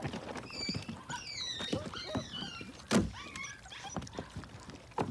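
A litter of young puppies whining and squeaking in short, high, falling notes while they eat, over scattered small knocks, with one sharp thump about three seconds in.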